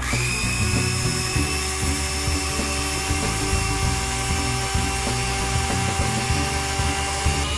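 Electric hand mixer switched on, its motor whine rising briefly as it spins up, then running steadily as its wire beaters whisk sugar into runny cake batter.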